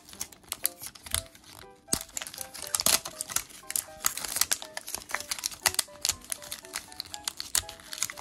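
Plastic wrapping crinkling and tearing in many quick, irregular crackles as a Miniverse capsule is peeled open by hand, over light background music.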